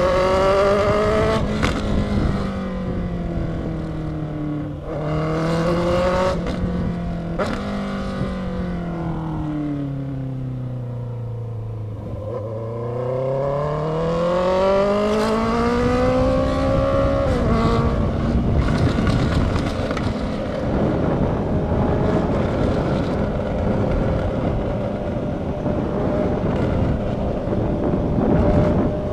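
Straight-piped Honda CBR650F inline-four motorcycle engine with no muffler, its revs climbing and falling in long sweeps for roughly the first seventeen seconds, then holding fairly steady under a rush of wind noise.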